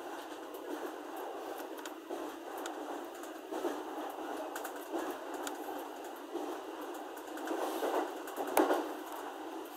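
Running noise of an E231 series electric commuter train heard inside the passenger cabin: a steady rumble of wheels on rail with scattered clicks, swelling louder for about a second near the end.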